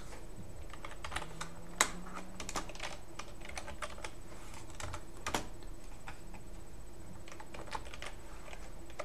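Typing on a computer keyboard: a run of irregular keystrokes, with a couple of sharper clicks about two and five seconds in.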